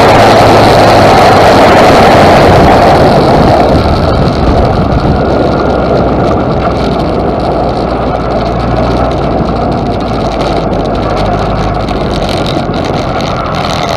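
Single-seater racing car's engine, heard from the cockpit with wind rush: loud at first, then easing off about three seconds in and running more quietly at lower revs as the car slows.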